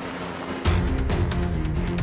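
MH-6M Little Bird helicopter running steadily, then, about half a second in, background music with a heavy bass and a steady beat starts suddenly and takes over.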